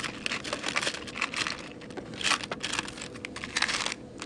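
Hands rummaging through hardware in search of a screw: an irregular run of crinkling, clicking rustles.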